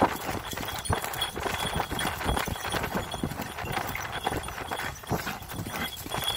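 Horse galloping on a soft, muddy dirt track, heard from the saddle: a quick, uneven drumming of hoofbeats.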